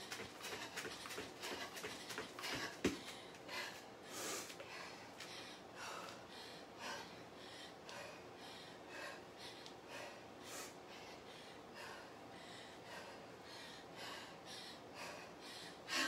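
A person breathing hard through a workout, with quick barefoot footfalls on foam floor mats in the first few seconds, then slower, evenly spaced heavy breaths. One sharp knock about three seconds in.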